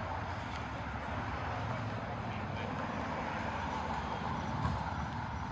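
Steady city street noise with a low traffic rumble from a vehicle on the road.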